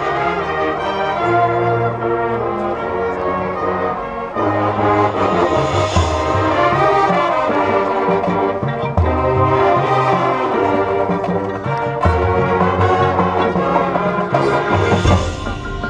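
High school marching band's brass section playing loud, sustained chords that change every few seconds.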